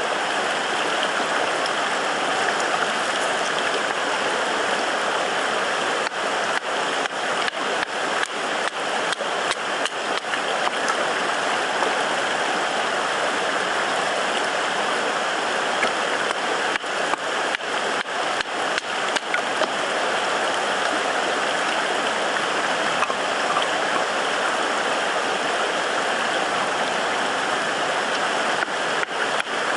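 Steady rush of flowing water, with scattered sharp clicks and ticks through the middle and again near the end.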